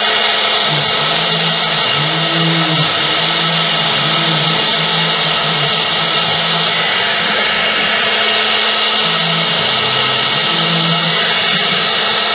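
CNC router spindle running at high speed while its bit cuts grooves into a sign panel: a steady high whine with cutting noise, under a low hum that comes and goes every second or so as the machine moves.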